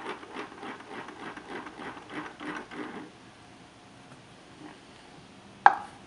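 Wooden puzzle box's internal locking mechanism clicking in a quick rhythm, about four clicks a second for the first three seconds, as the upside-down box is swirled counterclockwise: a swinging weight drives a worm gear that pushes the locking levers out to lock the box. A single sharp knock near the end.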